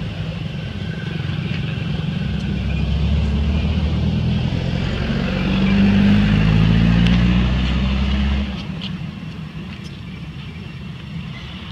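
A motor vehicle's engine running with a low hum that builds over several seconds and then drops off sharply about eight and a half seconds in.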